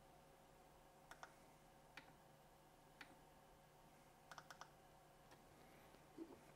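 Faint clicks of the front-panel buttons and dial on a Yaesu FTM-300DR mobile radio, pressed one at a time with a quick run of three or four about four seconds in, as the operator steps through the menu to set the transmit power to medium.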